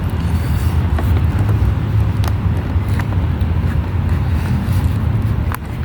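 A steady low outdoor rumble, with a few faint clicks from the doll's packaging being handled.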